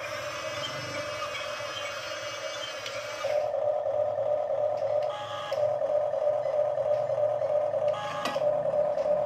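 Huina RC toy excavator's small electric gear motors whining as it moves its arm and bucket. For the first three seconds the whine gives way to a higher, rasping buzz, and the steady note then returns. It breaks briefly at about five seconds, and there is a short clack just after eight seconds.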